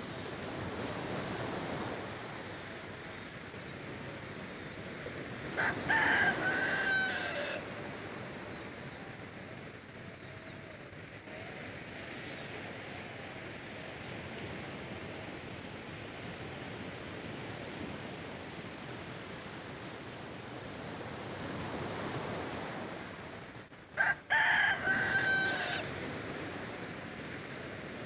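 A rooster crowing twice, about eighteen seconds apart, over the steady wash of small surf on the shore.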